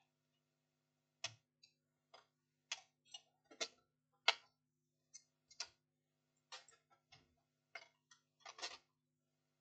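Irregular light clicks and taps, about twenty over eight seconds, from tools, probes and connections being handled at an electronics repair bench, over a faint steady hum.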